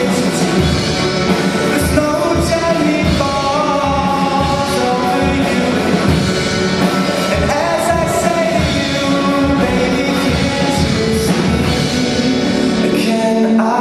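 A live rock band playing a song with a singer's voice over it.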